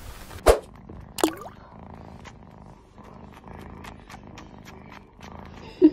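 A domestic cat purring, a low steady rumble with small ticks over it. Just before, there is a sharp click and a quick swish, and a short louder cat sound comes near the end.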